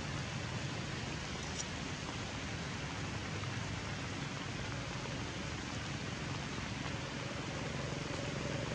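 Steady rain falling on forest leaves, an even hiss without a break.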